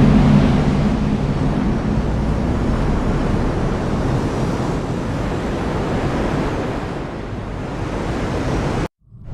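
Heavy rain falling in a steady, dense hiss, with a low rumble of thunder fading away in the first second. The sound cuts out completely for a moment near the end.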